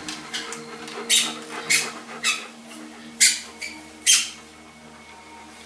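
Dog chewing a squeaky toy, squeezing out about six short, high squeaks at uneven intervals.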